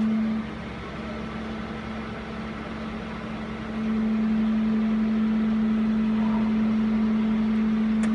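Steady mechanical drone with a strong low hum from a fire-service aerial platform's engine and hydraulic power unit running. It turns quieter about half a second in and louder again about four seconds in.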